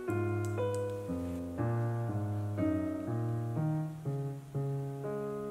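Background piano music, with a new note or chord about every half second.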